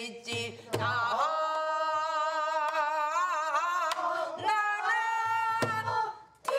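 Korean traditional singing by a female voice: long held notes with a wide, wavering vibrato, with a few sharp knocks. The voice breaks off briefly near the end.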